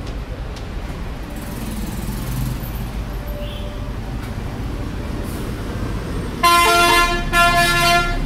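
Steady low rumble of road traffic, then a vehicle horn honking in a few loud blasts, starting about six and a half seconds in.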